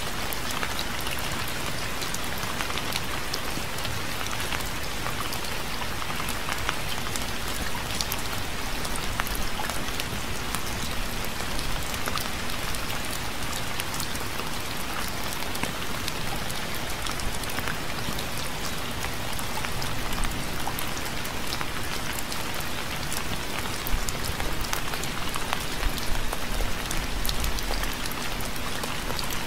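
Steady rain falling, a dense even patter of drops, with a low rumble swelling for a few seconds near the end.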